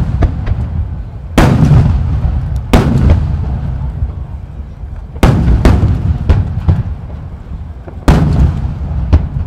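Large shakudama (30 cm) aerial firework shells bursting in a rapid barrage: four deep booms, each followed by a long rolling echo, with smaller sharp cracks between them.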